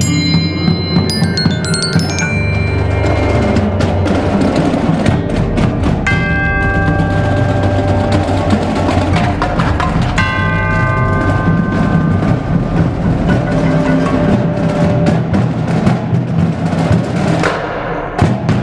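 Indoor drumline percussion ensemble playing: xylophone mallet strokes at first, then tubular chimes struck with hammers, whose long ringing notes come in partway through over drums and the rest of the ensemble.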